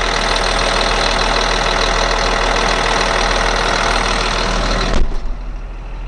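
Caterpillar C7 7.2-litre turbo diesel idling steadily, loud with its engine cover open. About five seconds in there is a thump as the cover is shut, and the idle drops to a muffled hum.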